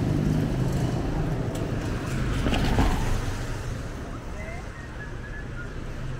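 Street traffic: a motor vehicle's engine running close by and then fading away, with a short louder rush of noise about halfway through.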